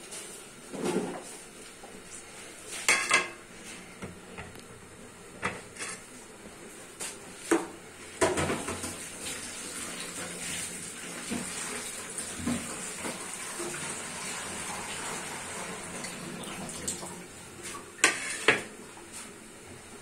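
Kitchen tap running for several seconds in the middle as potatoes on a plate are rinsed under it. Sharp clatters of steel dishes and utensils come before it and twice near the end.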